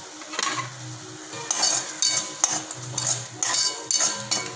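Metal spatula scraping and stirring a thick onion-tomato masala around a kadhai, a quick run of scrapes that grows busier after about a second and a half, with the oil sizzling softly underneath.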